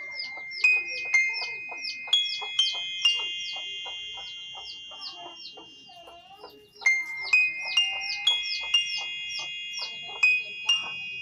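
A slow melody of held high notes from a phone keyboard app's synthesized voices, played in two phrases: the first dies away about halfway through and the second starts near seven seconds in. Under it runs a busy patter of short chirps and clicks, several a second.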